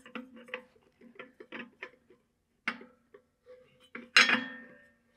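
Metal intake filter housing being threaded by hand into the intake port on an air compressor's pump head: a run of small metallic clicks and scrapes, with a louder metal clank about four seconds in that rings briefly.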